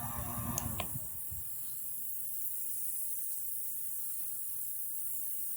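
Two quick clicks, then a small appliance running with a steady high hiss and a faint low hum; a rumbling low noise stops about a second in.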